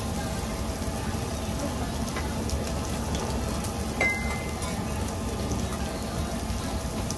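Meat sizzling steadily on a tabletop barbecue grill pan. About four seconds in comes a single sharp metal clink with a brief ring: metal chopsticks striking a metal sauce bowl.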